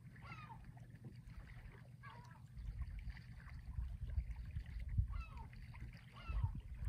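A bird calling again and again, each call a quick falling run of chirps, over a low rumbling noise that swells in gusts from about a third of the way in.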